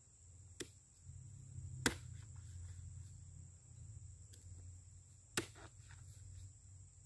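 Three sharp chopping strikes of a long-handled blade into the stalk of an oil palm fruit bunch, trimming the stalk to a V; the second strike, about two seconds in, is the loudest.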